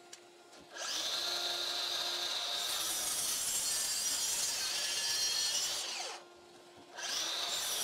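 DeWalt DCS781 60V FlexVolt brushless 12-inch miter saw spinning up with a rising whine and cutting through wood for about five seconds. The blade winds down quickly under the saw's regenerative brake, then the saw starts up again near the end.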